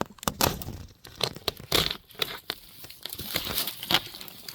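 Polythene cover of a hoop house being cut and pulled with a Stanley knife: irregular crinkling and tearing of the plastic sheet.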